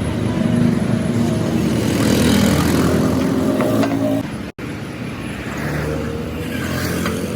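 Tractor engine running steadily with a low, even hum; the sound cuts out for an instant about four and a half seconds in and resumes.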